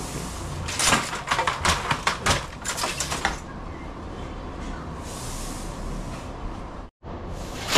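Silk handloom with a jacquard harness being worked: a quick run of wooden clacks and knocks from the beater and shuttle, about four a second, starting about a second in and lasting a couple of seconds, then a quieter rattle of the loom.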